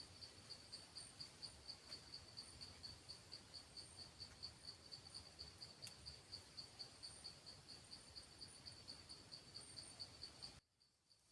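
Faint insect chirping from the forest: a high, even pulse about five times a second that stops abruptly near the end.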